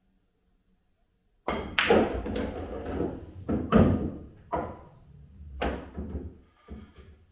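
Pool shot: a sharp cue-tip strike on the cue ball about a second and a half in, then the clack of the cue ball on the object ball as it is potted, and a string of knocks as balls hit the cushions and drop into the pocket, over a low rumble of balls rolling on the table.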